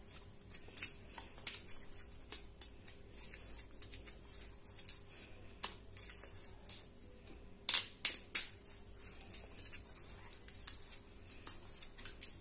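Teflon thread-seal tape being pulled off its roll and wound around the plastic threads of a pipe adapter: irregular crinkling and rustling, with two sharper snaps about eight seconds in.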